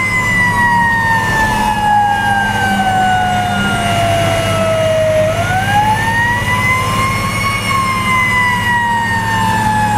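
Fire engine's siren heard from inside the cab, wailing: its pitch falls slowly for about five seconds, climbs back up over about two seconds, then starts falling again. Underneath runs the steady drone of the fire truck's engine.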